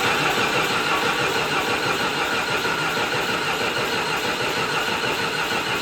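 John Deere 450C bulldozer's diesel engine turning over on the starter, cranking steadily without catching. It has sat for months with air in the fuel lines.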